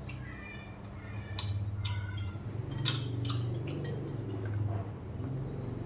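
Eating sounds: chewing on grilled skewered meat, with sharp clicks of chopsticks against a ceramic rice bowl, the loudest about three seconds in, over a low steady hum.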